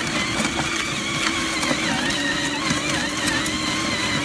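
Battery-powered ride-on CAT bulldozer toy's electric drive motors and plastic gearbox running, a steady whine with scattered clicks.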